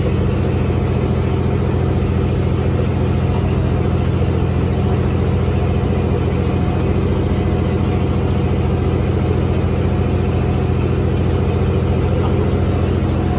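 A riverboat's engine running steadily, heard on board as a constant low drone.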